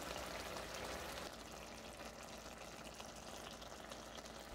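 Green fava beans simmering in olive oil and water in a frying pan: a faint, steady bubbling sizzle with fine crackles, which drops a little in level about a second in.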